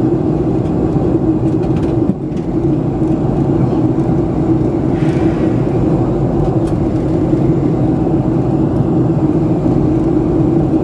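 Steady jet airliner cabin noise heard from a window seat of a Boeing 737 in flight: the engines and the airflow over the fuselage make a constant rumbling rush with a steady hum, dipping briefly about two seconds in.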